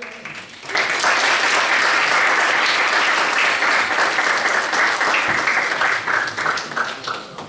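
Audience applauding. The applause breaks out suddenly less than a second in, holds steady, and thins and dies away near the end.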